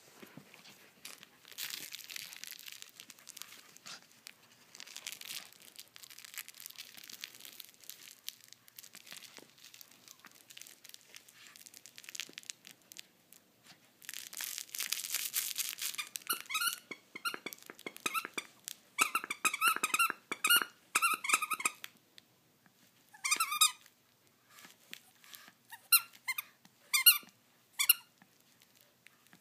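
Scratchy rustling of a plush toy being tussled over, then, past the middle, the toy's squeaker squeaking in quick repeated bursts as a Shih Tzu bites and tugs it.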